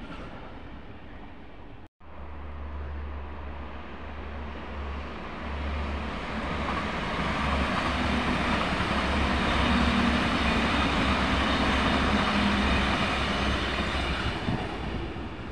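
BRB diesel multiple unit passing close by. Its engines drone with a steady low hum over wheel and rail noise, growing louder as the train comes past and easing off near the end. The sound cuts out abruptly for a moment about two seconds in.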